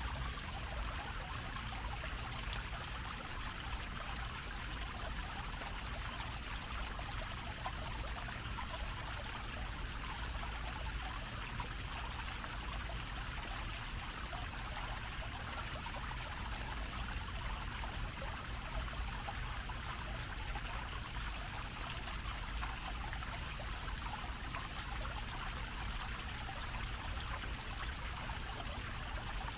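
Fountain's low, dome-shaped jet of water splashing steadily back into its basin. A faint low rumble runs underneath.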